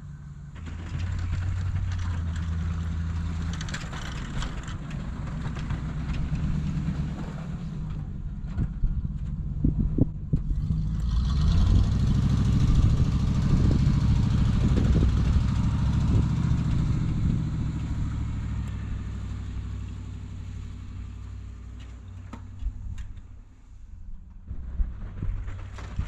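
Square-body pickup plow truck's engine running as it pushes snow, getting louder toward the middle as the truck comes close and fading away near the end as it drives off.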